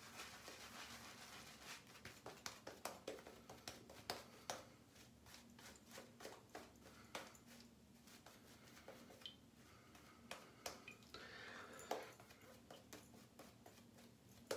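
Faint, irregular scratchy strokes of a shaving brush working lather over a few days' stubble.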